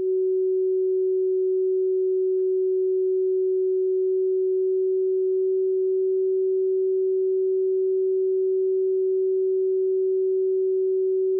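A steady, pure tone of about 400 Hz: an Icom IC-7300 in CW mode receiving the unmodulated WWV 10 MHz time-signal carrier as a beat note. A faint hiss of band noise comes through the narrow CW filter around it. The tone's exact pitch shows how far the transceiver's reference oscillator is off frequency.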